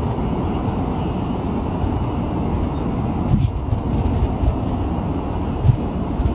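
Electric train running with a steady low rumble, with two brief thumps, a little past halfway and near the end.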